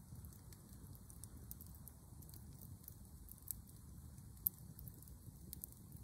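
Wood campfire crackling quietly with scattered small pops, one sharper pop about four and a half seconds in, over a low steady rumble.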